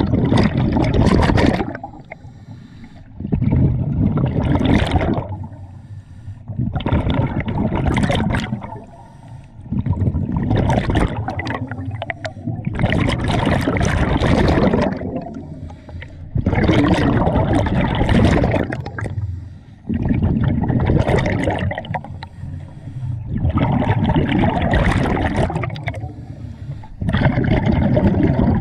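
Scuba diver breathing through a regulator, heard underwater: a loud rush of bubbling exhaled air about every three seconds, about nine breaths in all, with quieter stretches between.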